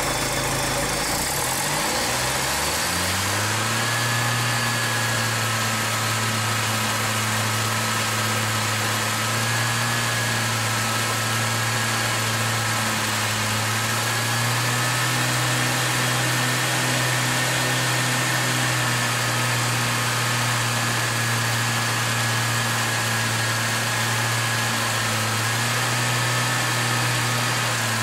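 A 1971 International Scout 800B's engine running, its speed rising over the first few seconds and then holding at a steady fast idle, with a thin wavering whistle over it. The engine is being decarboned: water is dripped into the open carburetor throat while it runs.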